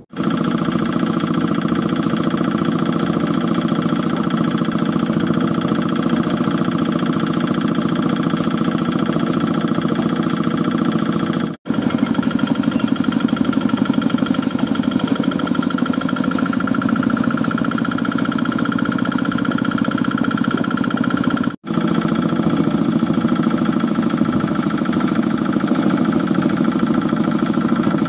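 Small single-cylinder diesel engine of a portable concrete mixer running steadily with a fast chugging beat. The sound drops out for an instant twice.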